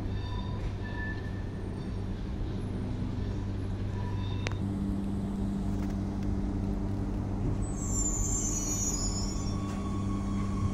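TER regional train pulling into the station with a steady low hum of running gear and motors. Between about seven and a half and nine and a half seconds in, a high brake squeal falls in pitch as the train slows.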